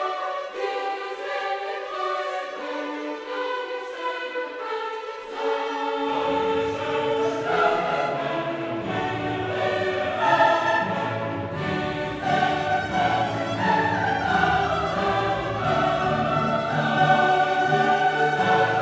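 Background orchestral music with a choir singing; low bass parts come in about six seconds in and fill out the sound.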